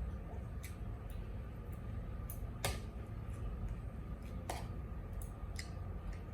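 Scattered small sharp clicks of cutlery against a plate and mouth sounds while eating, two of them louder in the middle, over a steady low hum.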